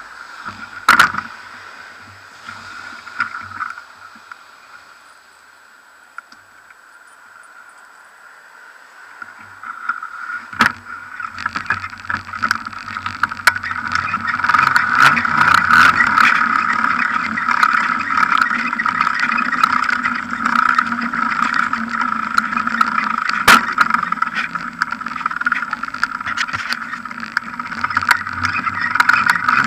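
Bicycle ridden over pavement slabs, picked up by an action camera mounted on the bike: a steady rushing noise with frequent small rattles and knocks from the bike and the camera mount. It is quieter for the first ten seconds or so, with a couple of sharp knocks, before the riding noise builds.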